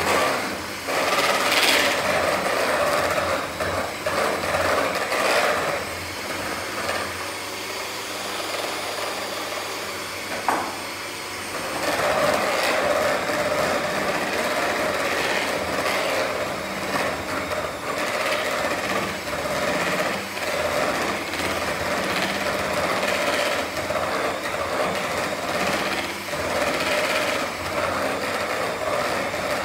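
Hand-held electric mixer running steadily, its beaters working self-raising flour into cake batter in a plastic mixing bowl, with scattered clicks. It runs quieter for several seconds a little way in, then picks up again.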